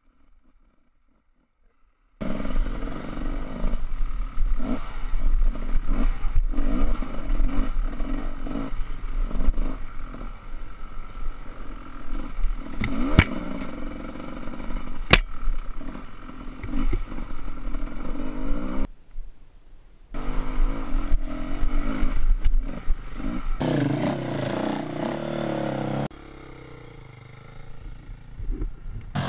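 Enduro dirt bike engine running on a helmet camera, its note rising and falling with the throttle, over clatter and knocks from the bike crossing a rough, rutted dirt trail, with a steady low rumble of wind on the microphone. The sound begins abruptly about two seconds in.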